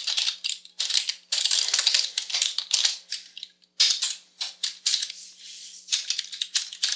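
Typing on a computer keyboard: quick runs of key clicks broken by short pauses, with a brief stop about three and a half seconds in.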